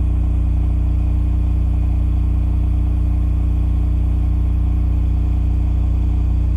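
Cummins Power Generation RS20A standby generator running steadily under load at 3,600 RPM, a constant low engine hum with no change in speed.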